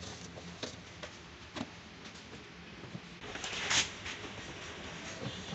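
Handling noise from a plastic concealed-cistern kit being unpacked: scattered light clicks and taps of plastic parts, with a brief louder scraping rustle a little before four seconds in.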